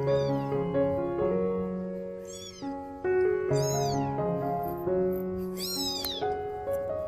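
Kitten meowing four times, short high mews that rise and fall in pitch, the last one the loudest, over background music of steady held notes.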